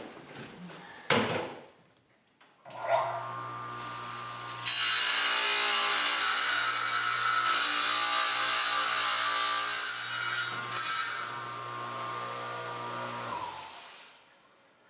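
A short knock about a second in. Then a tile saw's motor starts with a steady hum, and about two seconds later its diamond blade cuts through a ceramic wood-plank tile with a loud, steady cutting noise for about six seconds. The noise eases as the blade runs free, and the motor shuts off near the end.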